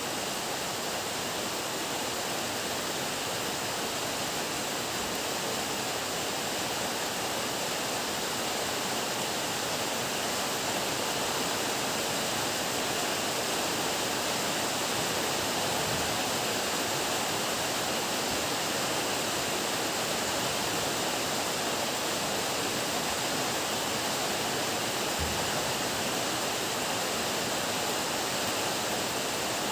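Heavy rain pouring down steadily in an even, unbroken hiss.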